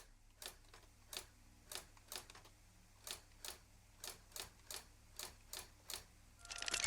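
Manual typewriter keys striking in an irregular run of faint clacks, about two or three a second. Chiming music fades in at the very end.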